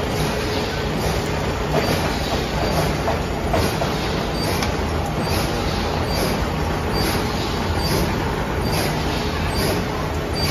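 Plastic bag-making machine running, a steady mechanical rumble with a regular light clack about every two-thirds of a second.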